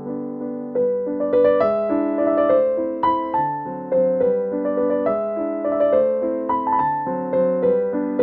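Background piano music: a melody of struck notes over held lower notes, with a new note roughly every half second.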